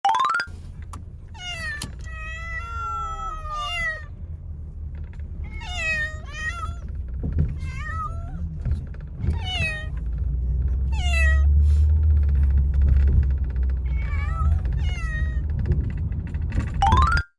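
A cat meowing again and again inside a moving car, a series of long calls that bend in pitch, over the low rumble of road noise. A short rising sweep comes at the very start and at the very end.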